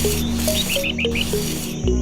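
Background music with a steady bass line and short plucked melody notes, with a quick run of high chirping notes a little under a second in.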